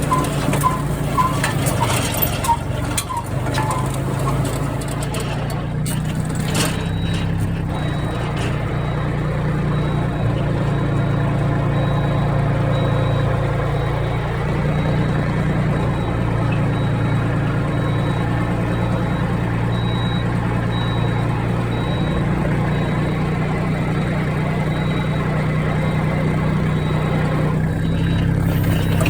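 Tractor-mounted rotary tiller running with the engine steady, with irregular knocks in the first several seconds and a faint thin high whine that comes and goes. This is the abnormal noise from near the rotary shaft that the owner suspects comes from lack of oil or a bad bearing.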